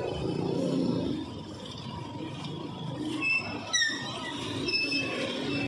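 Street traffic of motorcycles and motorized tricycles running, a steady hum with a low rumble, with a few short high squeaks about three to five seconds in, one sliding down in pitch.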